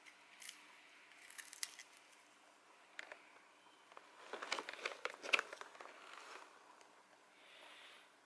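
Crinkling of a foil treat pouch: scattered small crackles and clicks, thickening into a dense cluster about four to five and a half seconds in.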